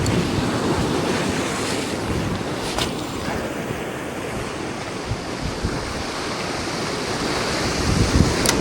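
Sea surf washing against a rocky shore, with wind buffeting the microphone in low gusts. Two short sharp clicks stand out, about three seconds in and near the end.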